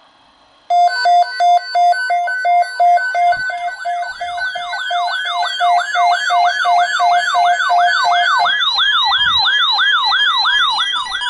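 Weather radio alert alarm signalling an incoming tornado watch. It starts abruptly under a second in with rapid, even electronic beeping. About three seconds in, a repeating falling siren-like whoop joins it and carries on alone after the beeping stops near the end.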